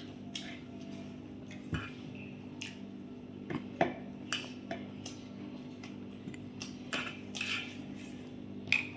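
Close-up eating sounds: wet chewing of mixed fried rice and chili chicken, with scattered short clicks and taps against a plate, over a steady low hum.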